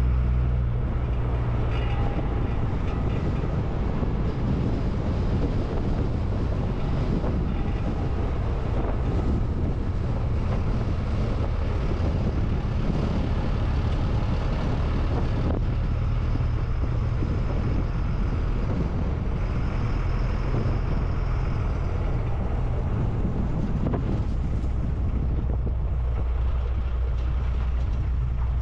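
MAN 4x4 truck's diesel engine running steadily as the truck drives along, with road noise from the gravel track and some wind on the microphone.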